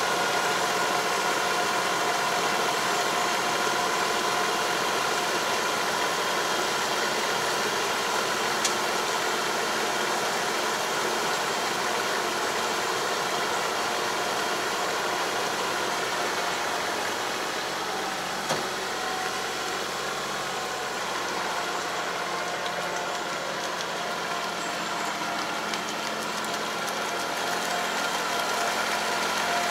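Farm tractor engine running steadily under load while it drives a Kobashi 3 m drive harrow puddling a flooded rice paddy. It makes an even drone with a few steady whining tones in it.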